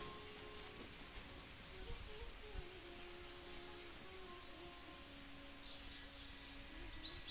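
Rural outdoor ambience: a steady high-pitched insect drone, with birds chirping in short falling notes several times in the first half.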